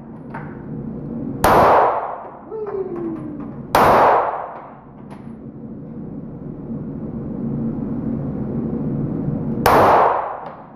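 Three shots from a Glock 19 9 mm pistol, echoing in an indoor range. Two come about two seconds apart, and the third follows about six seconds later.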